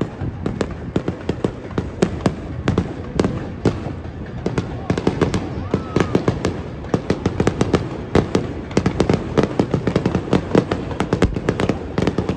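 Aerial firework shells bursting overhead in quick succession, a steady run of bangs and crackles that grows denser about halfway through.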